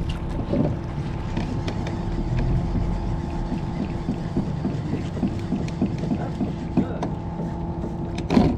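A boat motor running steadily with an even hum, and a brief louder sound near the end.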